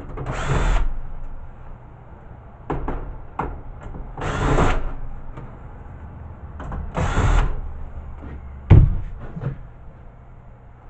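Cordless drill-driver backing screws out of a VHS player's sheet-metal case: three short whirs a few seconds apart, with small clicks between them. Near the end, a single sharp knock is the loudest sound.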